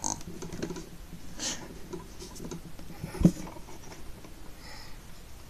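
Handling noises from a hand moving a plastic Stikbot figure and its tissue-paper blanket on a toy-brick bed: light scratching and rustling, with one sharp click a little past three seconds in.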